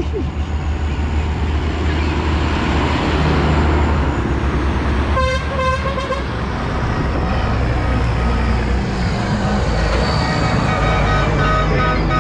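Tractor engines running steadily with a deep rumble, and a vehicle horn tooting twice about five seconds in.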